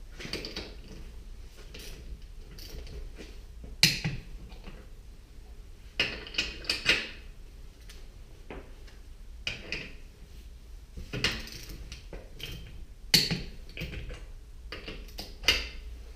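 Irregular metallic clinks and knocks from handling tools and wheel hardware (lug nuts, spacer, wheel) during wheel installation, with two sharper knocks about four and thirteen seconds in.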